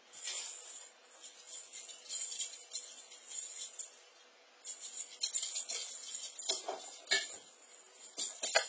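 Small bell inside a jingle ball jingling in irregular bursts as a cat bats the toy around, pausing briefly in the middle, with a few knocks in the last couple of seconds.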